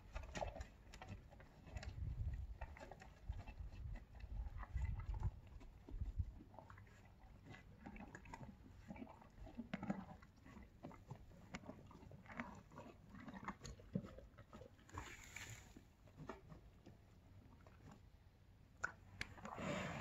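Thoroughbred horse chewing its feed, with irregular crunches all through and low thumps in the first few seconds.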